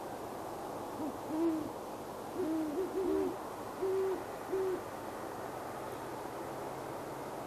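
Great horned owl hooting: a series of about six deep, even-pitched hoots, with a quick stuttered run of three in the middle, over a steady hiss.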